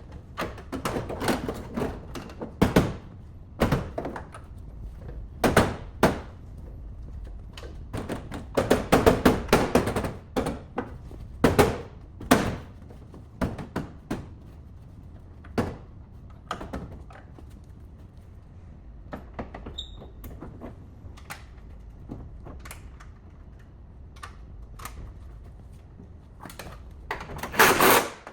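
Irregular knocks, clunks and clicks of hand work on a car body, some in quick clusters, with the loudest run of knocks near the end.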